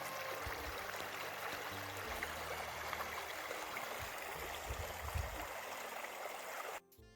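Small taiga river or stream running: a steady rushing of water that cuts off suddenly near the end.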